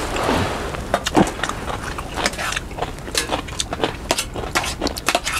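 Spoons and tableware clicking and clinking irregularly during a meal, a dozen or so sharp little knocks, over a steady low background hum.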